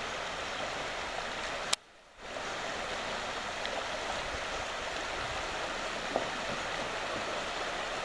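River water rushing steadily through shallow rocky rapids. About two seconds in, a click is followed by a gap of near silence lasting about half a second.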